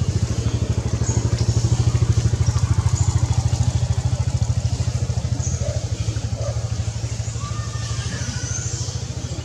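A small engine running steadily at idle nearby, a low rapid throb that eases off slightly in the second half.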